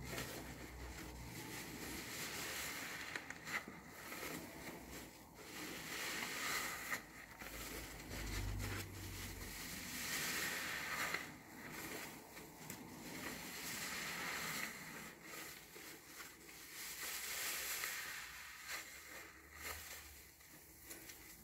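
Large foam car sponges soaked with soap lather, squeezed and kneaded by hand: wet squishing and a hiss of foam, coming in uneven surges.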